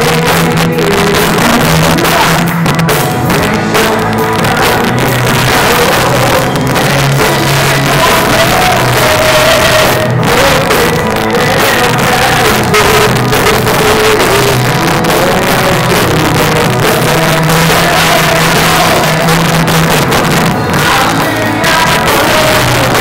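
Live worship band playing: a man and a woman singing a Portuguese worship song together over a drum kit and guitar, loud and continuous.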